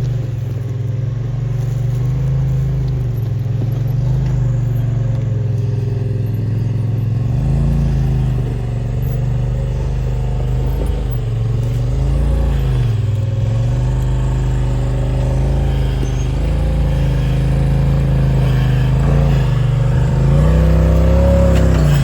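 Side-by-side UTV engine running as it drives, the pitch dipping and rising again several times with changes in throttle.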